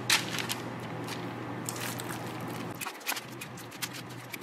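Metal cookie scoop scraping dough from a stainless steel bowl and releasing it onto parchment paper: a few soft scrapes, clicks and rustles of the paper. Under them is a faint low steady hum that stops about three seconds in.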